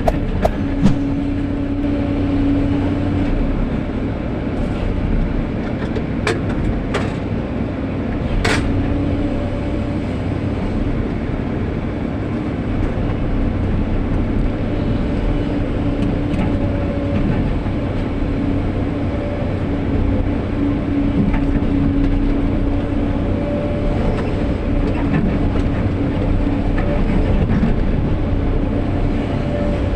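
SANY SY215 hydraulic excavator working: its diesel engine runs steadily under load, with a pitched hum that comes and goes as the hydraulics work. A few sharp knocks sound between about six and nine seconds in.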